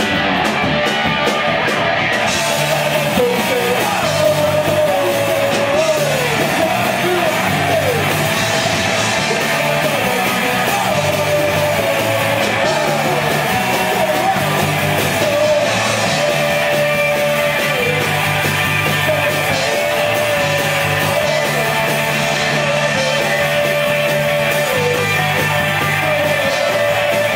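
Punk rock band playing live: distorted electric guitars, bass guitar and a drum kit, with the singer's half-sung, half-shouted vocals over them. Steady and loud throughout.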